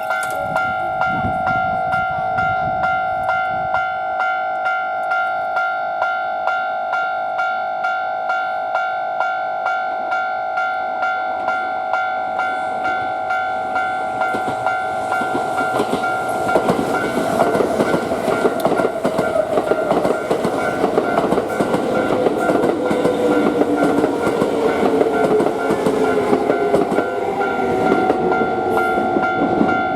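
Japanese level-crossing alarm ringing steadily, a little under two strikes a second. From about halfway in, a train passes over the crossing with clattering wheels on rail joints and a whine that slowly falls in pitch.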